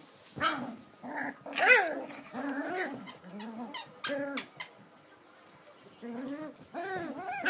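Puppies play-fighting, giving a string of short high-pitched yaps, whines and growls, with a brief lull a little past the middle.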